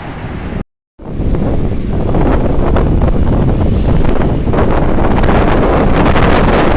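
Strong sea wind buffeting the phone microphone, a loud, low, fluttering rumble with sea surf beneath it. The sound cuts out completely for a moment about a second in, then comes back louder.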